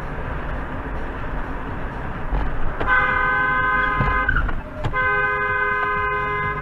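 A car horn blown in two long blasts, the first about three seconds in and the second after a brief break, over steady road noise heard from inside a moving car.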